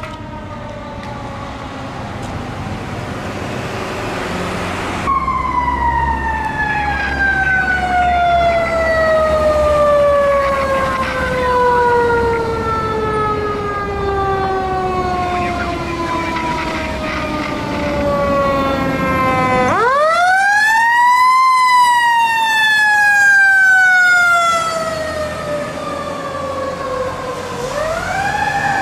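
A fire truck's mechanical siren winding down slowly over many seconds, its wail sinking steadily in pitch. About twenty seconds in it is revved up sharply and coasts down again, and it is revved once more near the end.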